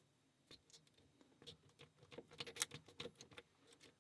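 Faint, quick metal clicks and scrapes of a lock pick and tension tool working in a pin-tumbler lock's keyway, growing busier about halfway through.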